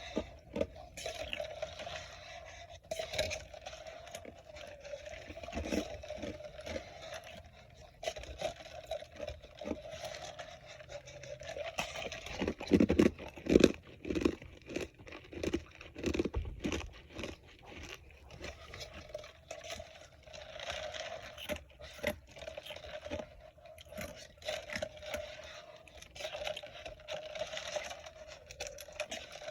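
Ice being bitten and chewed close to the microphone: irregular crisp crunches and crackles, loudest about halfway through.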